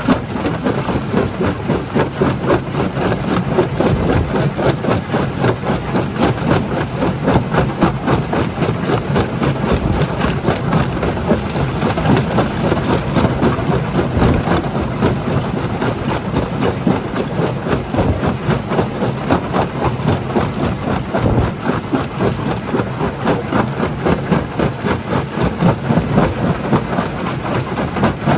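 Primary jaw crusher at work in a stone-crushing plant: a steady low drone of heavy machinery under a dense, continuous clatter of rock being broken.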